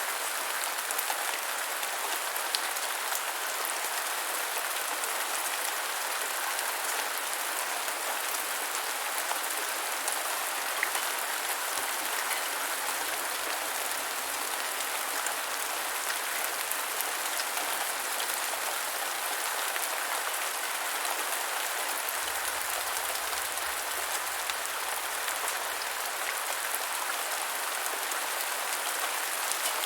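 Steady rain falling on the ground, a dense even patter flecked with individual drop hits.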